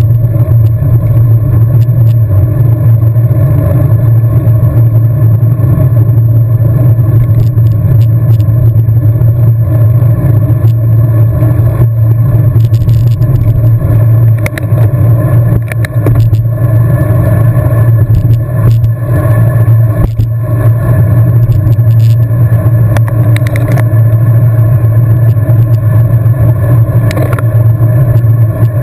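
Wind rushing over the camera's microphone while riding a road bike at race speed: a loud, steady low rumble, with a few scattered clicks and knocks from the bike.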